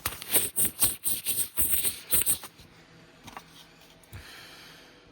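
Handling noise from a plastic scale model car body being picked up and turned over: a quick run of clicks and scrapes for about two and a half seconds, then a few faint taps.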